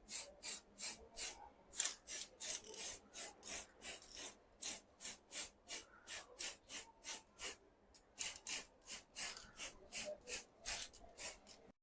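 Rhythmic back-and-forth scraping strokes, about three a second, of a bicycle part being abraded by hand, such as rust being scrubbed or sanded off. The strokes break off briefly about eight seconds in, then resume, and cut off abruptly at the very end.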